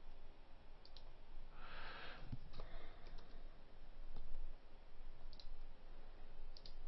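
Computer mouse clicking, single sharp clicks a second or so apart, over a low steady hum, with a short soft hiss about two seconds in.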